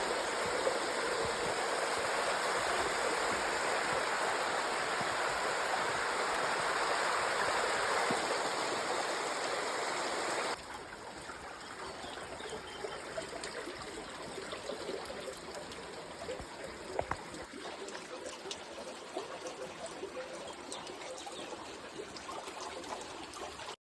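Running water, a steady stream-like rush; about ten seconds in it cuts abruptly to a quieter trickle with faint scattered ticks.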